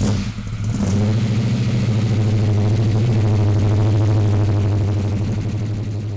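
Chevrolet 454 V8 in an HT Holden Monaro idling steadily with a rapid, even firing pulse, freshly fitted with roller rockers and new rocker studs. It comes in abruptly and eases slightly in level near the end.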